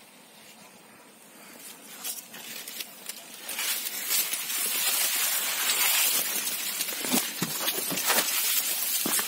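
Maize leaves rustling and scraping as someone pushes through a cornfield, quiet at first and growing loud from about three seconds in, with many short crackles.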